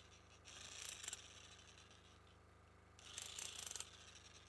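Faint electric hammer running in two short rattling bursts, about half a second in and again about three seconds in, over the steady low hum of a BISON diesel generator that holds its speed under the on-off load without stalling.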